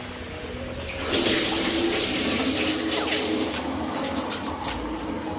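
Water pouring and splashing, starting about a second in and easing off near the end.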